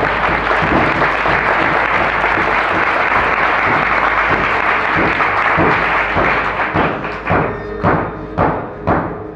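Audience applause that slowly fades, then four sharp knocks about half a second apart near the end, with music playing underneath.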